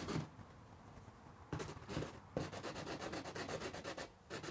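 80-grit sandpaper rubbing over cured epoxy on the back of a pickup's fender flare, a steady rasping scrape that eases off for about a second near the start, then runs on before a brief pause near the end. The epoxy sands without clogging.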